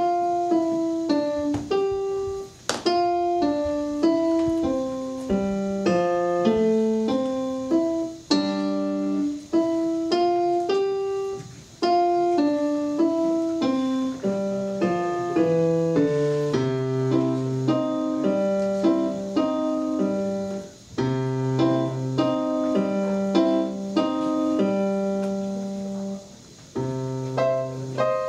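Electronic keyboard played solo with a piano sound: a melody over chords and low bass notes, with a few short pauses between phrases.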